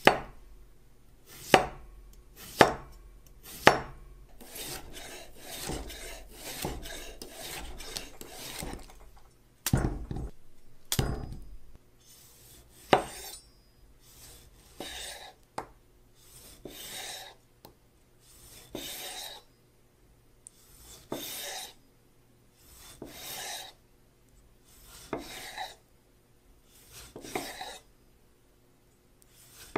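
A freshly sharpened chef's knife cutting vegetables on a bamboo cutting board: first quick cuts through a cucumber, each ending in a sharp knock of the blade on the wood, with a couple of duller thumps about ten seconds in. Then slow slicing strokes through a tomato, about one every two seconds, each a soft rasp of the blade drawing through the skin and onto the board.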